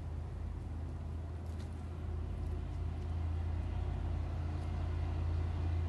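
A low, steady engine hum, growing a little louder in the second half.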